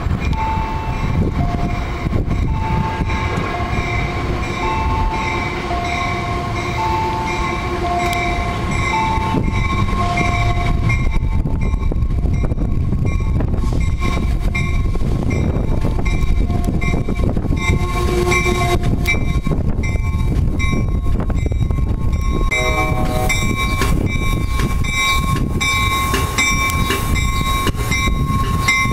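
Amtrak diesel locomotive pulling into the station, its engine a low steady rumble. An alternating two-note warning tone sounds for the first ten seconds or so. About two-thirds of the way in there is a short horn blast, then the locomotive's bell rings steadily.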